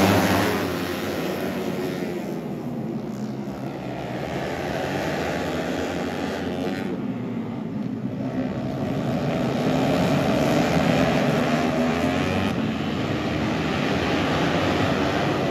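A pack of 150cc four-stroke underbone road-race motorcycles running at speed, many engine notes overlapping and rising and falling in pitch as they rev through the corners.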